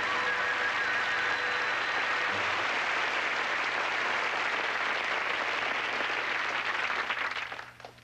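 Studio audience applauding. The applause dies away quickly about seven and a half seconds in, leaving a few scattered claps.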